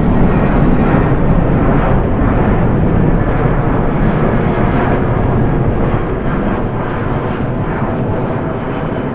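Jet aircraft sound effect: a loud, steady engine rumble that slowly fades over the last few seconds as the jet passes away.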